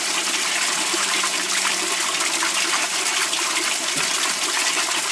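Water running and splashing steadily inside an aerobic septic treatment station, the aerated water circulating and pouring into the pump chamber as its float rises. A faint low hum runs underneath.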